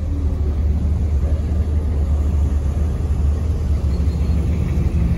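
Engines of classic American cars rolling slowly past in a line: a steady, deep engine rumble with no revving.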